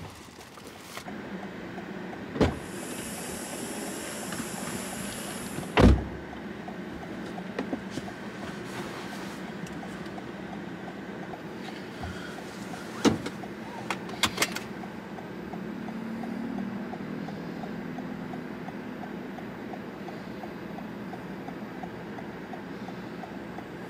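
Inside a stationary car: a steady low hum, a hiss lasting about three seconds a few seconds in, and several sharp knocks and clicks, the loudest about six seconds in.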